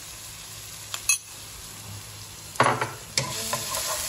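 Minced garlic sizzling gently in hot oil in a nonstick wok, with a wooden spatula knocking and scraping against the pan a few times. The loudest knock comes about two and a half seconds in.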